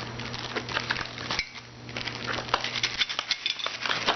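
Small plastic toy pieces clicking and clattering together as they are handled, in many quick light knocks.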